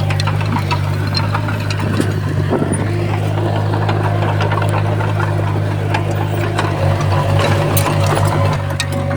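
Komatsu D31P bulldozer's diesel engine running steadily, with scattered sharp clanks and clicks over it. From about seven seconds in, the engine note pulses for a second and a half.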